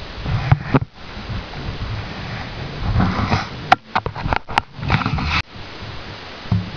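Hands working on a netbook's LCD screen assembly: uneven rubbing and rustling of the panel and plastic frame, with a few sharp clicks about four seconds in.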